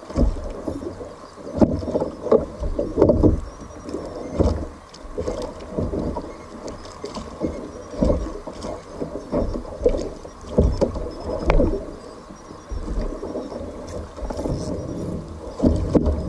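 Sea water sloshing and slapping against a fishing kayak's hull on a choppy swell, in irregular surges about every second or two.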